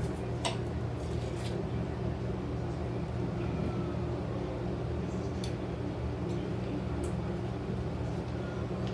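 Air conditioner running with a steady low hum, with a few light clicks over it.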